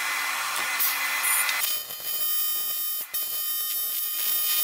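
AC TIG welding arc on cast aluminium, a steady hissing buzz as filler is built up over a crack. The buzz dips briefly twice.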